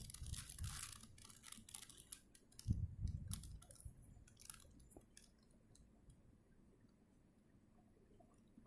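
Plastic 4x4 Rubik's Cube being turned by hand: faint, quick clicking and clattering of its layers, which dies away about five seconds in.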